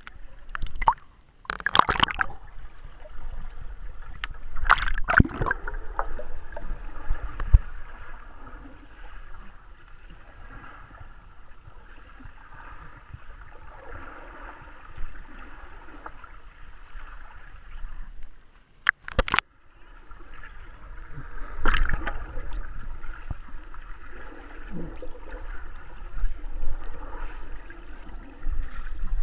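Muffled underwater gurgling and bubbling of lake water heard through a submerged action camera, with swimmers churning the water. Several sharper, louder splashing bursts come through, near the start, about 5 seconds in, and around 19 and 22 seconds in.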